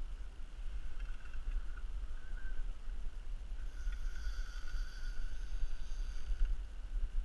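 Spinning reel whirring in short spells, the longest from about four seconds in, while the rod is bent with the line under load. A low rumble of wind on the microphone runs underneath.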